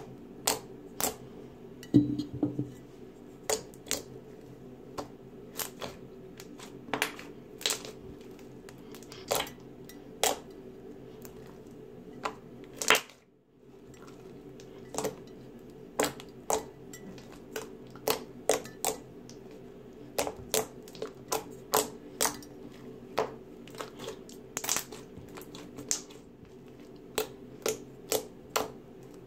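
Slime being worked by hand, giving off irregular sharp clicks and pops, about one or two a second, over a faint steady hum.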